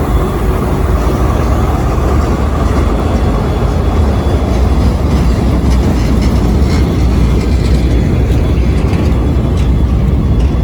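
Freight train running on an industrial access track: a loud, steady low rumble, with a few sharp clicks in the second half.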